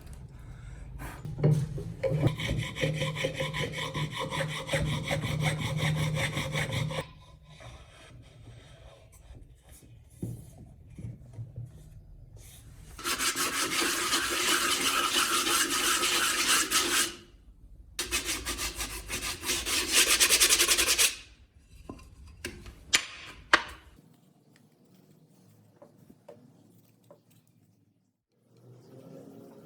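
Rasping, sawing-like abrasive tool work on the workpiece in three long spells of several seconds each, with short pauses and a few clicks between them.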